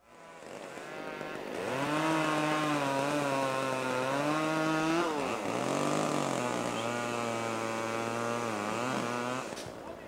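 Chainsaw running at high revs, its pitch wavering slightly and dipping briefly about five seconds in before it picks up again; it stops shortly before the end.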